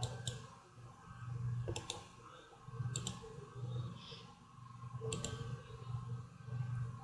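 Computer mouse clicking, four clicks a second or two apart, each a quick double tick of press and release. Under the clicks is a low hum that swells and fades about every second and a half.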